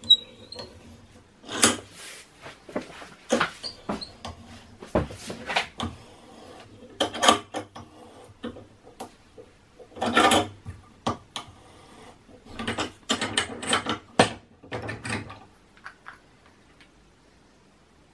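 Irregular clicks, knocks and rattles of hard plastic parts being handled in a small plastic bench vise as it is worked and the fidget spinner is taken out of its jaws; the handling noise stops about two seconds before the end.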